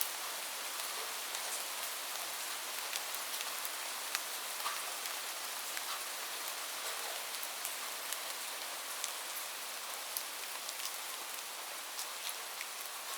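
Steady rain falling, an even hiss with many separate drops ticking sharply through it.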